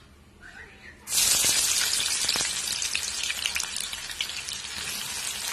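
Sliced onions dropped into hot oil in a kadhai: a loud frying sizzle starts suddenly about a second in and keeps going, loudest at first and easing slightly.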